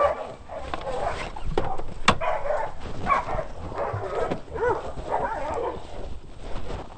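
Catahoula hunting dogs barking and whining in short, scattered calls, with two sharp clicks about two seconds in.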